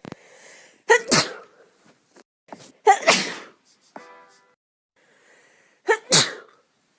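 A person sneezing three times, a couple of seconds apart; the first and last sneezes each come as two quick bursts.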